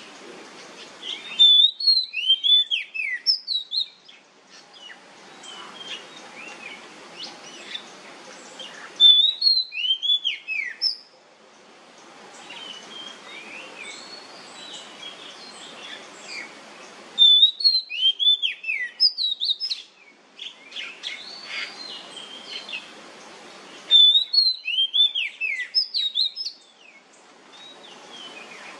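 Oriental magpie-robin singing loud 'nyemplong' phrases of sharp, rapid whistled notes, four bursts of two to three seconds each. Between the bursts there is only a quiet hiss with faint chirps.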